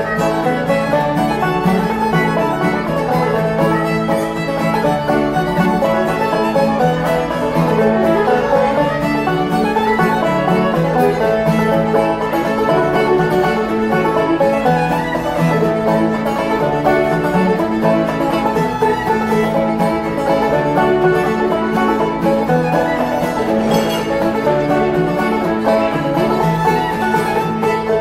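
Acoustic string trio playing an instrumental tune together: banjo, fiddle and acoustic guitar.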